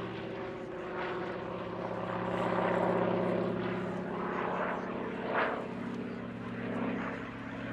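Single-engine piston propeller aircraft flying a display, its engine a steady drone that grows louder about three seconds in, with a short sharp peak a couple of seconds later.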